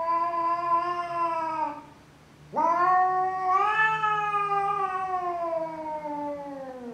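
Tabby village cat yowling at its own reflection in a mirror, taking it for a rival cat: one long drawn-out call ends about two seconds in, and after a short pause a second long yowl rises a little and then slowly falls in pitch until near the end.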